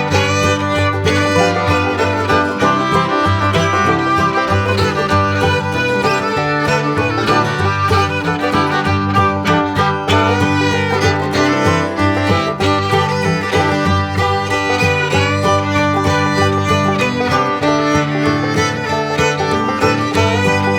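Background music: an upbeat bluegrass-style tune led by fiddle, with plucked-string accompaniment and a steady beat.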